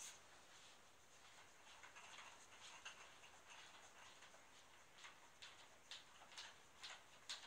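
Faint clicks and light rattling as the metal telescopic legs of a Prologic Tri-Sky rod pod are handled and adjusted. Sharper clicks come about twice a second near the end.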